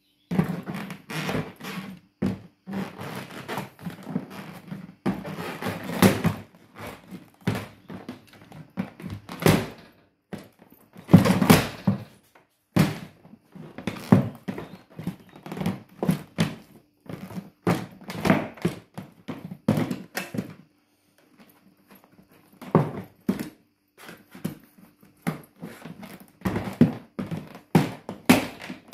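High-heeled leather boots stamping and treading on a hard-shell plastic suitcase that is being crushed: a long run of irregular thunks. The thunks stop for about two seconds two-thirds of the way through, then start again.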